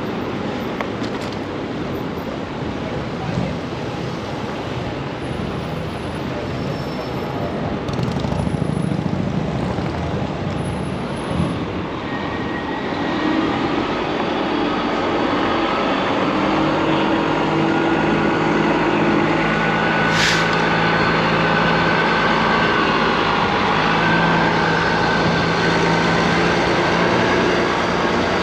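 City street traffic: an even road rush for the first dozen seconds, then a large vehicle's engine running steadily close by, louder through the second half. A short hiss comes about twenty seconds in.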